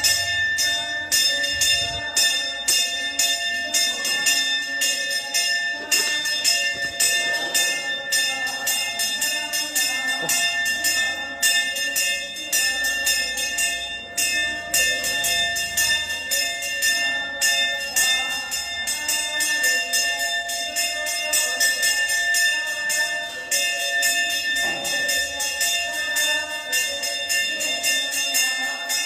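Temple bell rung continuously with rapid strokes, its ringing tones held steady underneath.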